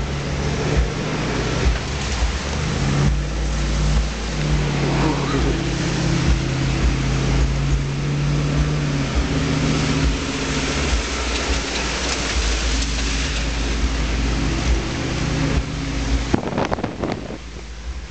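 An off-road 4x4's engine running as it drives through a shallow creek, with water and mud spraying against the body and windshield in a steady hiss. A few sharp knocks near the end.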